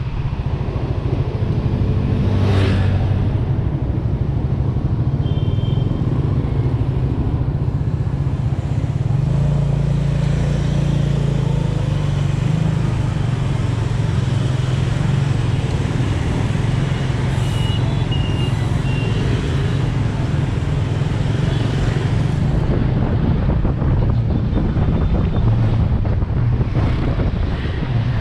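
Small motorbike engine running on a moving ride through city traffic, a steady low rumble with surrounding street noise, and a few brief high-pitched beeps.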